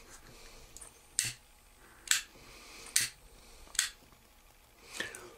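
A lighter clicked four times, about a second apart, until a small blue flame catches to melt the end of the line into a bead for the fly's eyes.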